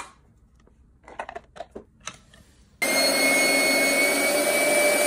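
A few light clicks of plastic parts being handled. Then, about three seconds in, a 3D-printed fan starts abruptly: a 3000KV brushless RC motor spins its Dyson-style impeller very fast, making a loud, steady high whine over a rush of air.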